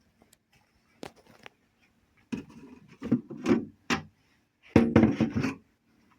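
Irregular knocking, rubbing and scraping of something being handled, with several loud bursts in the middle; no motor running.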